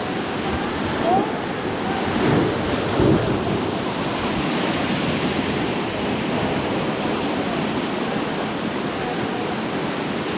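Rushing whitewater of a river rapid, a steady loud wash of water, with wind buffeting the microphone.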